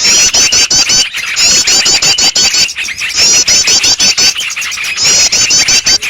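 Bird-lure recording of many small songbirds calling at once: a dense, continuous chatter of chirps, with four runs of rapid high, curved notes of about a second each repeating through it.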